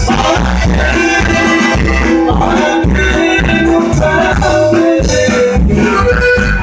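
Live norteño band playing: accordion, guitar and drums over a steady low beat.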